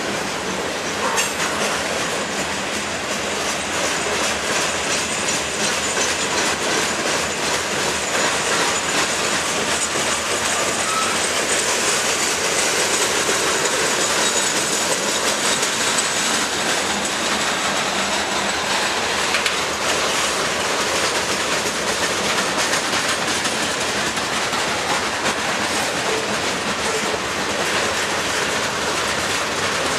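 Covered hopper cars of a Norfolk Southern freight train rolling steadily past: steel wheels on rail, with rhythmic clickety-clack over the rail joints. A faint high wheel squeal runs through the first half.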